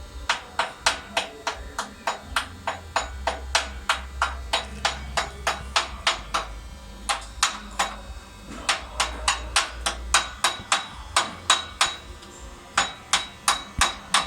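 Hammer striking metal in quick, even blows, about three to four a second, with a few short pauses.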